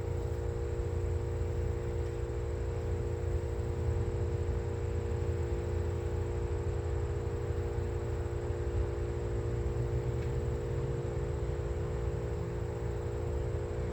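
An engine idling steadily, a constant hum with a low rumble underneath.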